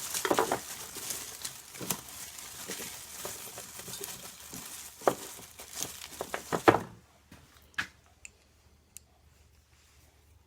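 Hands rummaging among small parts: rustling and crinkling with sharp clicks and taps, which stop about seven seconds in, followed by a few faint clicks.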